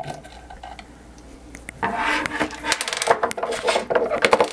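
A screwdriver scraping as it turns a screw out of the metal base of a Salton milk frother, starting about two seconds in. It is followed by a quick run of small clicks and metallic taps as the loose screws and the screwdriver are handled and set down.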